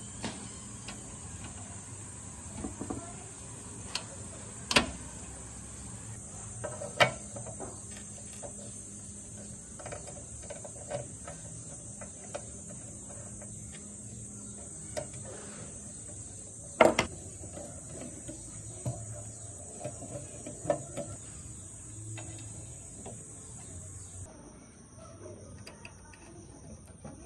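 Insects chirping steadily in a high-pitched drone, with a few sharp knocks and clicks scattered through it, the loudest one about two-thirds of the way in.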